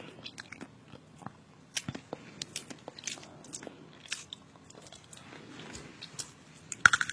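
A person chewing crunchy food noisily with the mouth open, making irregular crisp crunches and bites. The crunches come louder and closer together near the end.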